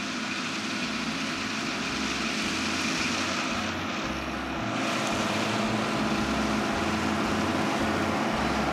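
Farm tractor engine running steadily while pulling a hay mower through a field, a constant mechanical drone with a rumbling low end.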